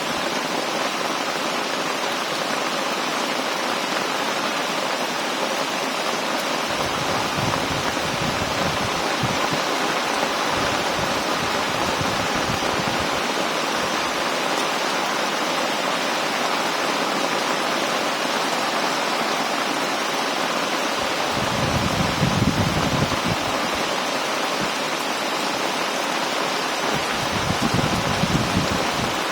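Heavy rain pouring steadily, with a few brief low rumbles coming and going.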